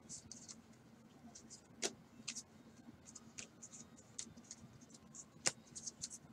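Baseball trading cards being flipped through and slid against one another in the hand: faint, soft swishes of card stock with a few sharper clicks, over a faint steady low hum.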